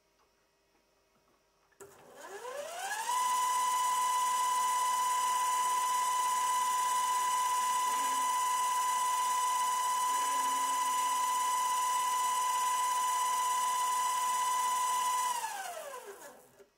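Chuck of a DIY micro lathe built from a CNC rotary axis spinning up, running and spinning down. The drive gives a high machine whine that rises in pitch over about a second and holds one steady tone for about twelve seconds. It then falls in pitch and dies away just before the end.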